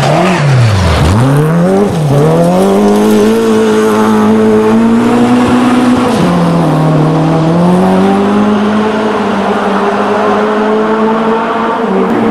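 Toyota Starlet Group F rally car's four-cylinder engine driven hard through a gravel corner: the revs dip and rise sharply with lifts and gear changes about a second in, then climb steadily as the car accelerates away. The pitch drops at a gear change about six seconds in and then holds.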